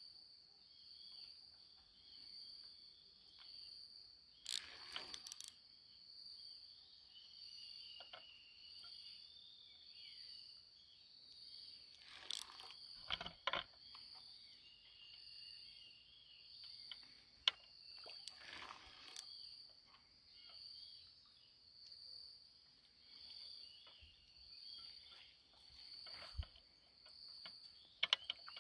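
Insects chirring in a steady high-pitched chorus that pulses slightly faster than once a second, with a few brief rustles and knocks now and then.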